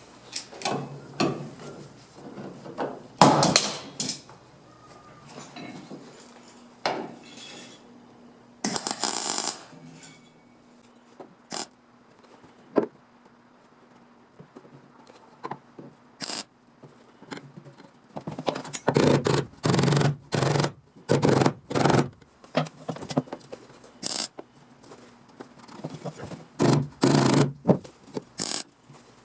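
Irregular scraping, rubbing and knocking of hand work on car body sheet metal, in short bursts with quieter gaps, busiest in the second half.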